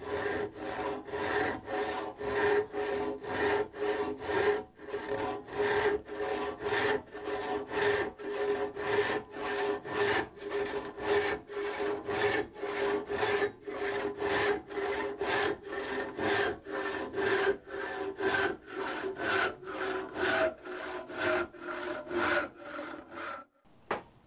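Freshly filed crosscut hand saw cutting a block of hard wood, which the sawyer believes is oak, in steady back-and-forth strokes about two a second, stopping shortly before the end. The teeth are sharpened but not yet set, and it cuts well.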